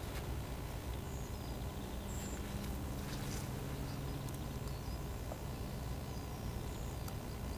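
Steady outdoor background noise with a low hum, and a few brief, faint high bird chirps.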